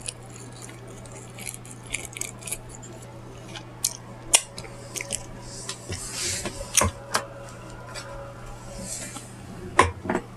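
Eating and food-handling sounds from a fried-chicken meal: scattered sharp clicks and taps, with a soft rustle about six seconds in and a fainter one near nine seconds, over a steady low electrical hum.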